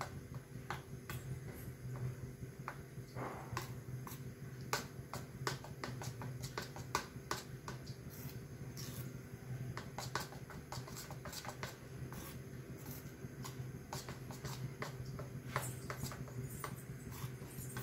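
Metal spoon stirring wet gram-flour batter in a stainless steel bowl: many irregular light clinks and scrapes against the bowl, over a steady low hum.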